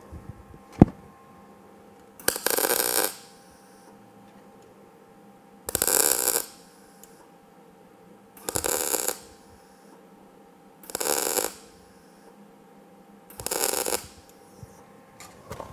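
MIG welder laying five short tack welds on thin sheet metal. Each tack is a brief crackling burst of under a second, separated by a few seconds of quiet. A single sharp click comes just before the first tack.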